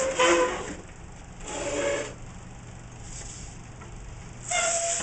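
A nearly 8-month-old baby vocalizing in three short high-pitched coos: one at the start, one about a second and a half in, and one near the end.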